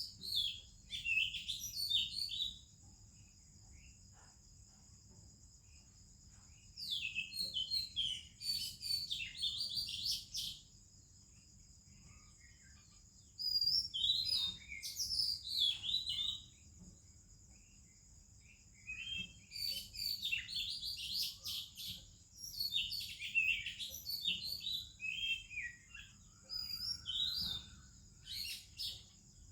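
Oriental magpie-robin singing: four bouts of quick, varied whistled and warbled phrases, with pauses of a few seconds between them. A steady high hum runs behind the song.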